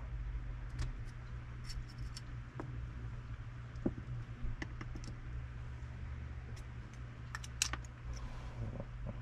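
Small metal parts of a Shimano Stella spinning reel clicking and tapping as they are handled and taken apart with fine tools, in irregular light clicks with a louder few about two-thirds through. A steady low hum runs underneath.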